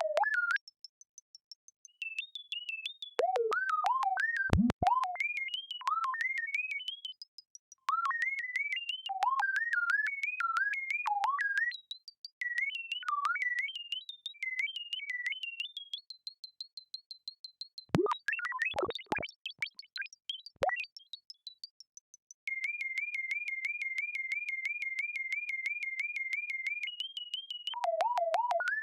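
Synthesized R2-D2-style robot beeps and chirps: rapid strings of short whistling tones that jump and glide in pitch, chopped into fast pulses. A few steep falling swoops come a little past halfway, and a long, rapid, even warble follows near the end.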